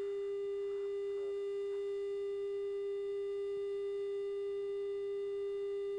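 A steady electronic tone held at one pitch without a break, the kind of pure tone carried on an archival tape's audio track.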